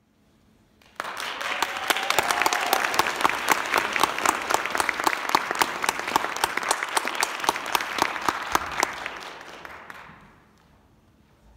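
Audience applauding. The clapping starts suddenly about a second in, with some sharp, close claps standing out, and dies away over the last couple of seconds.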